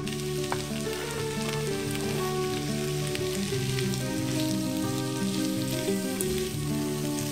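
Diced potatoes, carrots, onion and red bell pepper sizzling as they fry in oil in a nonstick pan, with a few light ticks as a silicone spatula stirs them. Soft background music with held notes runs underneath.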